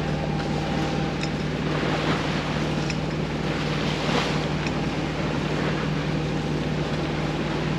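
A small sailboat's inboard engine runs steadily at high revs, pushing into a strong headwind and choppy seas. Wind buffets the microphone and waves rush and splash along the bow, surging louder about four seconds in.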